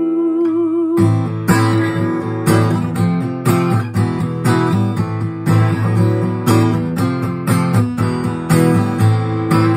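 A woman's voice holds the last sung note with vibrato, which ends about a second in. After that a steel-string acoustic guitar is strummed in a steady rhythm with no singing: an instrumental break in the song.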